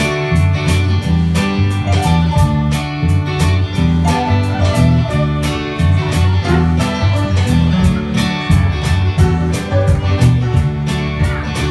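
Live band playing: acoustic guitars over a bass guitar line and a drum kit's steady beat.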